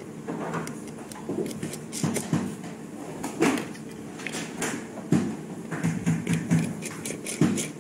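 A precision screwdriver working small screws on a phone's back cover and camera surround, with the parts handled against each other: irregular clicks, taps and scrapes, about a dozen spread through.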